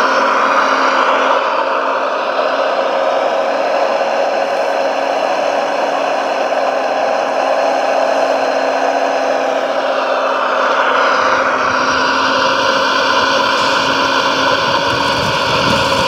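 Electric motors of a large self-built RC Volvo A45G dump truck running with a steady whir, their whine gliding up and down in pitch about a second in and again about ten seconds in. A low rumble joins about eleven seconds in.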